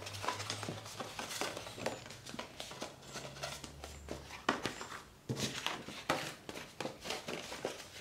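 Bazzil cardstock being folded along its score lines and handled: a string of light rustles and taps of card, with a couple of louder ones past the middle.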